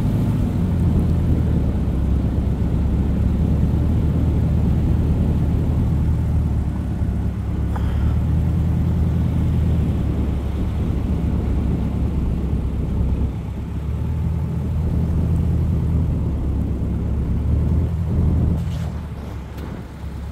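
Car driving along a road: a steady low engine drone with tyre and wind noise, the engine note shifting a little with speed. The sound eases off about two seconds before the end.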